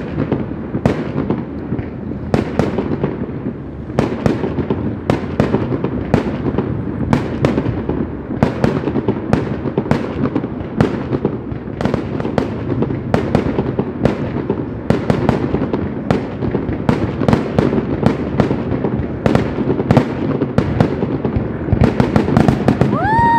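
Fireworks display: aerial shells bursting in a rapid, continuous barrage, about two bangs a second over a steady rumble, with a rising whistle near the end.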